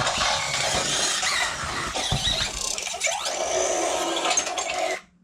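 Robosen Optimus Prime robot toy converting: its built-in transforming sound effect, a loud squealing, whooshing noise with rising sweeps about three seconds in, cutting off suddenly just before the end.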